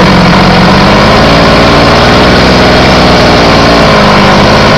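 Goped's Zenoah G23LH two-stroke engine idling steadily while the mixture screw on its stock carburettor is turned with a flathead screwdriver to lean it out; the engine note shifts a little midway.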